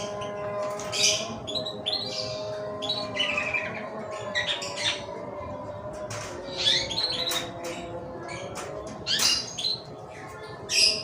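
Birds chirping and squawking in short, high calls repeated every second or so, loudest near the end.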